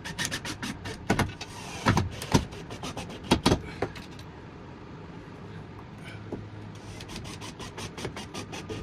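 Polycarbonate greenhouse panel being cut: a run of uneven sharp clicks and cracks through the first few seconds, a quieter stretch, then a quick series of clicks near the end.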